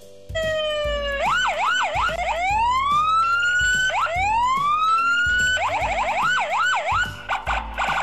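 Electronic police siren changing modes: quick up-and-down yelps, then two long rising wails, then quick yelps again and a rapid warble near the end, over a low pulsing beat.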